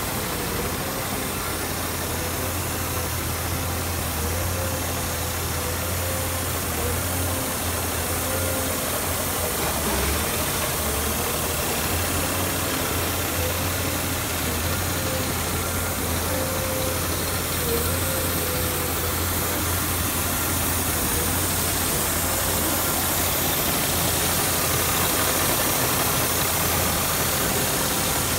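Scania R440 truck's six-cylinder diesel engine idling steadily.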